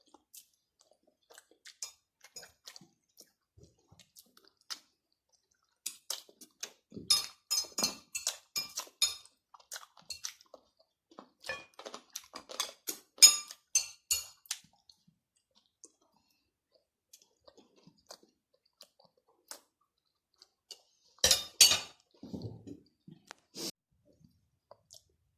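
Close-miked eating: food being chewed and crunched in three bursts of crisp clicks, with quiet gaps between. There are a few light clinks of dishes.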